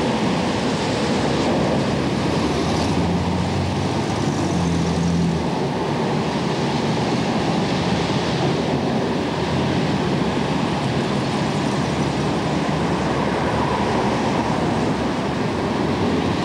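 Steady roar of night-time city street traffic on a camcorder microphone, with a low vehicle engine hum for a couple of seconds a few seconds in.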